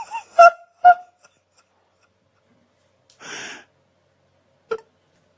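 An animal's two short, sharp calls about half a second apart, followed about three seconds in by a breathy huff and near the end by a single click.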